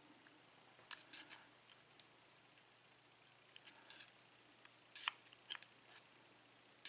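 Small, sharp metallic clicks and taps, scattered and in little clusters, as the brass pins and springs of a disassembled Yale pin-tumbler cylinder are handled.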